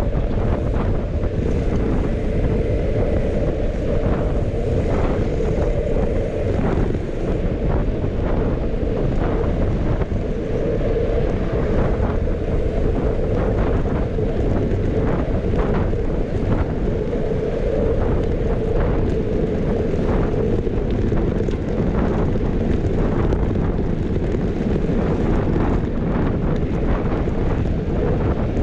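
Wind buffeting the microphone of a camera on a moving bicycle, over a steady road rumble, with frequent short clicks and rattles.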